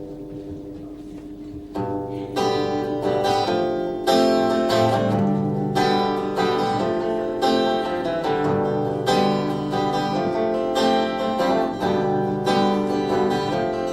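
Acoustic guitar playing the instrumental intro to a folk song. A chord rings and fades, then strummed chords start about two seconds in and carry on in a steady rhythm.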